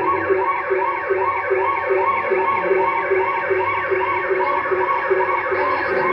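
Dance music with a siren-like electronic sound repeating about twice a second, each note sweeping down in pitch over a sustained backing.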